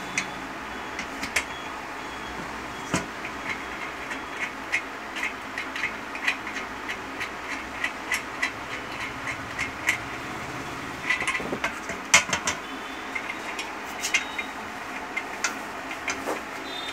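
Irregular light metal clinks and knocks as a sheet-iron treadle pedal plate is handled and bolted onto the iron frame of a sewing-machine stand, with a burst of knocks and the loudest knock about twelve seconds in, over a steady background hum.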